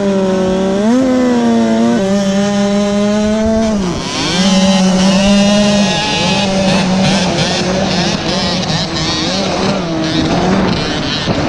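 Two-stroke supermini dirt bike engine pulling hard off the start line. It revs up, the pitch drops back at each gear change, then it runs on at steady high revs.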